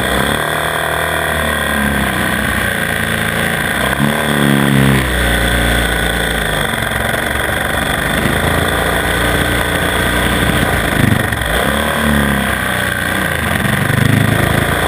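Onboard sound of a 450 cc single-cylinder four-stroke supermoto engine being ridden hard round a tight track. The revs rise and fall again and again as the rider brakes into corners and accelerates out.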